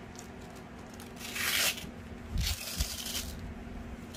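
Handling of a robot vacuum's plastic mop plate and its cloth mop pad: rustling and rubbing of cloth against plastic in two bursts, about a second in and again around two and a half seconds in.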